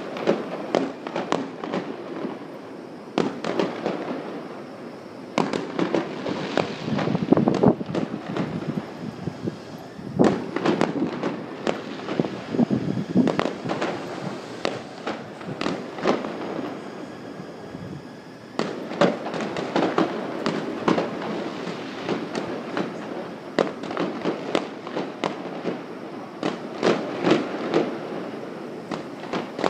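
Fireworks going off in a dense, continuous run of bangs and crackles, with a short lull a little over halfway through.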